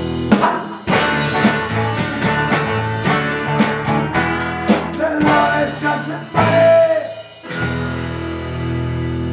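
Rock band playing electric guitars, bass and drum kit, with a quick run of drum hits, then the guitars ringing out on held chords near the end.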